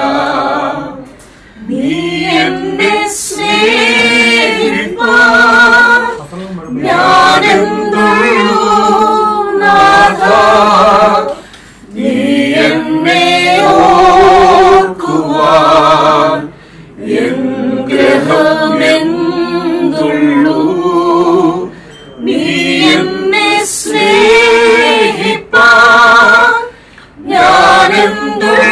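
Voices singing a Christian devotional song without instruments, in phrases about five seconds long with short breaths between them.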